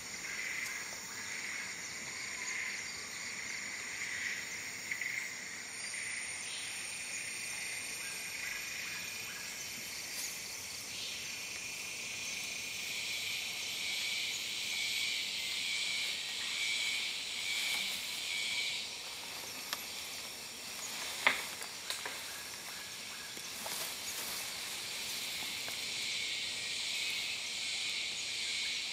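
Rainforest insect chorus: a steady high shrill of insects, pulsing at first, with one sharp click a little past the middle.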